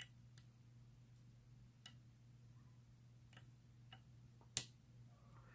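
Lock pick and tension wrench working the pins of a small pin-tumbler padlock: a handful of sharp, scattered clicks spread over several seconds, the loudest at the start and about four and a half seconds in, over a faint low hum.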